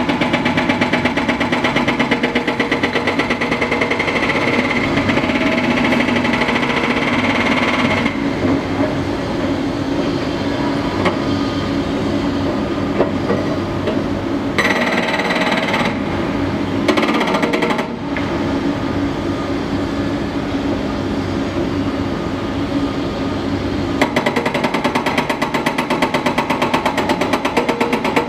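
A hydraulic hammer (breaker) on a Cat 330DL excavator pounding rock in rapid, even blows. The hammering stops about 8 seconds in, leaving a long stretch of machinery noise with two short bursts, then starts again near the end.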